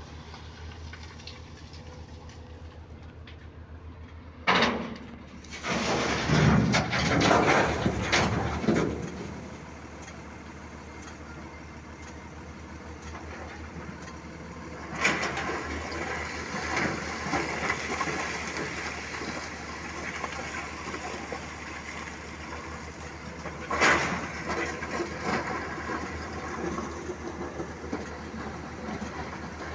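Heavy engine running steadily while a Komatsu hydraulic excavator's bucket digs into and drops broken quarry rock: a sharp crash about four seconds in, a loud burst of clattering stone soon after, and more crashing and rattling of rock from about halfway on.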